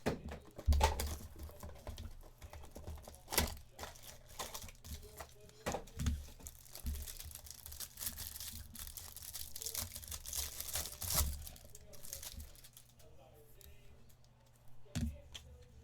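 Trading-card pack wrappers crinkling and tearing as cards are handled, an irregular run of sharp crackles and rustles.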